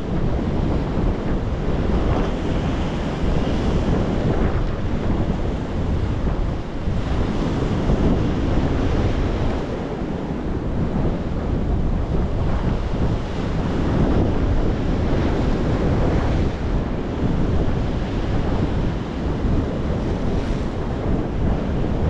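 Sea waves breaking on rocks and washing up a small sandy shore, the surf swelling and easing every few seconds. Wind buffets the microphone as a steady low rumble underneath.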